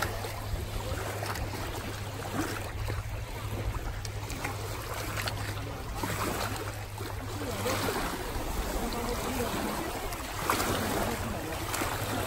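Small wind-driven waves lapping at a lake's rocky shore, a steady wash of water with wind rumbling on the microphone.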